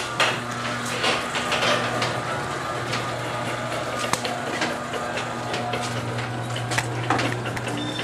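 Electric garage door opener running as the door goes up: a steady motor hum with frequent clicks and rattles of the door and its track.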